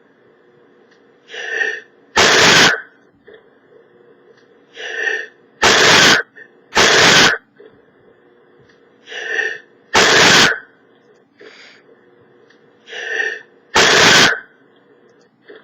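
A man sneezing loudly and repeatedly: five sneezes, each wound up with a rising 'ah' breath before the sharp blast, two of them coming about a second apart in the middle.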